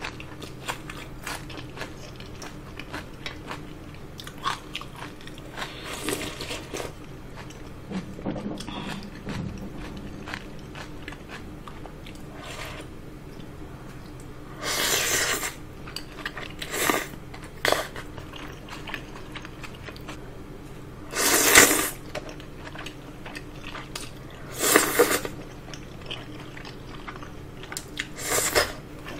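Close-miked eating of thick udon noodles: about five loud slurps, the loudest about two-thirds of the way through, with chewing and small clicks of chopsticks and spoon in between.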